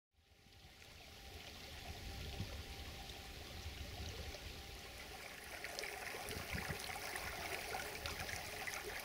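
Shallow stream trickling over stones, fading in from silence over the first second or two.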